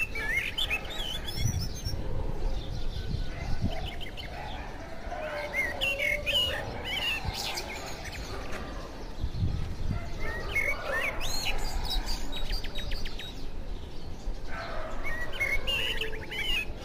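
Small birds chirping and twittering in short bouts every few seconds, with a quick trill about twelve seconds in.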